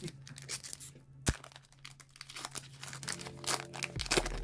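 Foil wrapper of a Pokémon card booster pack being torn open and crinkled by hand, with irregular crackling and one sharp snap about a second in.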